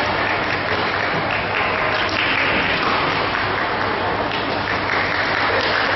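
Steady din of a large badminton hall: even, applause-like clapping and crowd noise, swelling slightly twice.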